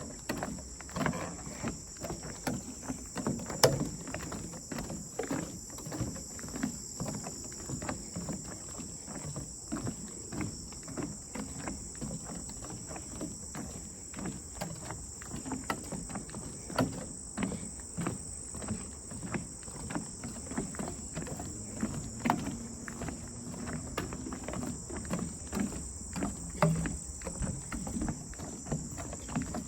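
Steady high-pitched chorus of insects, with irregular footsteps on a path.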